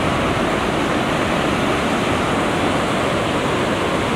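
Surf breaking on a sandy beach: a steady, even rushing noise with no separate wave strikes.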